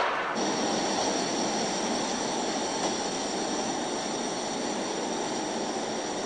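Steady roar of gas burners firing a fire-test rig, with faint high-pitched whining tones above it.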